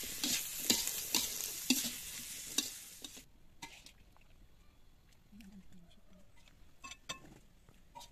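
Stir-fry sizzling in a metal wok while a spatula stirs, scraping and clacking against the pan. The sizzle cuts off abruptly about three seconds in, leaving only a few faint clicks and taps.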